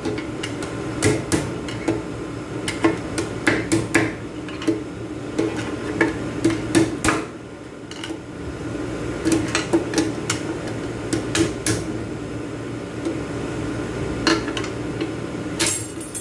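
Screwdriver tips prying and tapping on the steel return spring and its lock inside an aluminium Hyundai A6GF1 six-speed automatic transmission case: a run of irregular sharp metal clicks and knocks. The spring has to be knocked down to release it from the lock holding the low-reverse piston.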